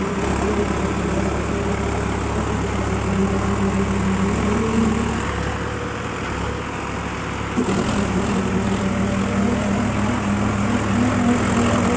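Diesel tractor engines running hard under load, pulling against each other in a tractor tug-of-war. The engine note fades about five seconds in and comes back abruptly about two and a half seconds later.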